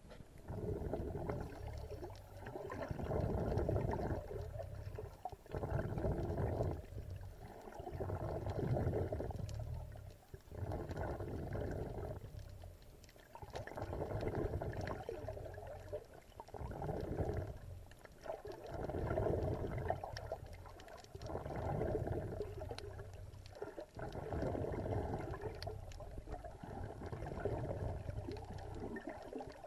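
Muffled sloshing and gurgling of water heard through an underwater camera's housing, swelling and fading in surges every two to three seconds.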